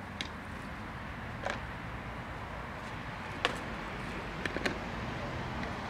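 Steady outdoor background noise with a low hum, crossed by a few sharp clicks and taps: the loudest comes about three and a half seconds in, and three follow in quick succession soon after.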